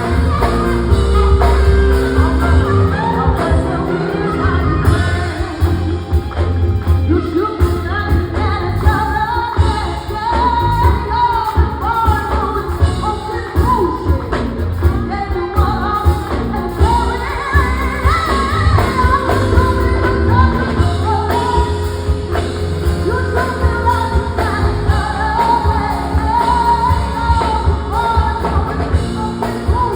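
Live band playing an upbeat rock-and-roll-style song with a lead vocal over drums and guitar.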